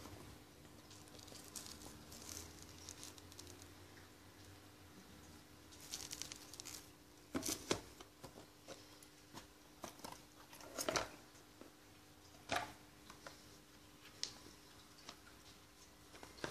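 Hands handling a tablet's retail packaging: plastic wrap and cardboard rustling and crinkling, with scattered taps and knocks as box parts and accessories are lifted and set down, the loudest about halfway through.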